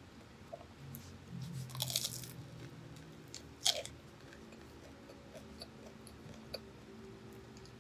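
Close-miked bites into crispy fried food wrapped in butter lettuce: a crunchy bite about two seconds in and one sharp crack a little later, then soft chewing clicks.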